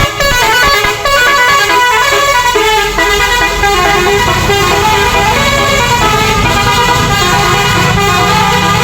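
Tour bus 'telolet' multi-tone air horn playing a melody, a quick run of changing notes held loud, with a low rumble underneath from about two and a half seconds in.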